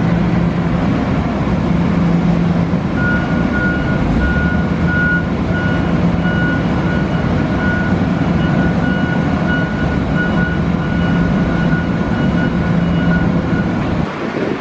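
Diesel freight locomotive running close by with a steady low rumble. From about three seconds in, a bell rings over it in a rapid repeating series that stops near the end.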